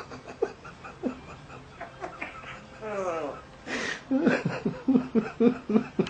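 Laughter: a quick run of short, rhythmic ha-ha bursts through the second half, after a single falling vocal glide about three seconds in.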